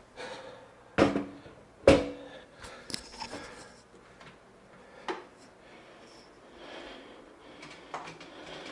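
Bathroom scale being handled and stepped on: two sharp knocks about a second apart, then lighter clicks and rattles.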